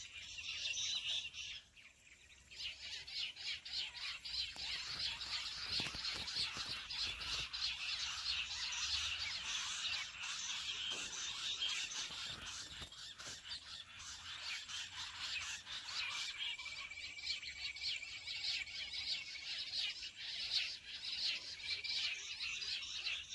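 Jungle bush quail calling: a rapid, continuous chatter of high notes that breaks off briefly about two seconds in. A thin steady whistle runs under it for a few seconds later on.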